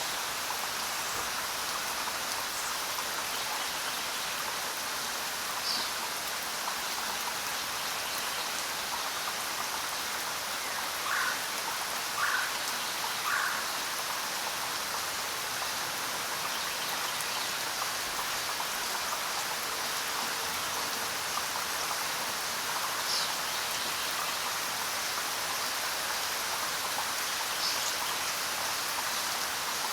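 Steady rain falling in a forest. A few short bird calls cut through it, three of them about a second apart near the middle.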